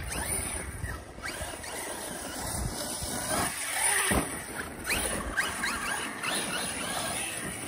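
Brushless electric motor of an ARRMA Outcast 6S RC truck on 6S LiPo power, whining up in several rising bursts as it is throttled around the ramp, over tyre and dirt noise, with a sharp knock about four seconds in.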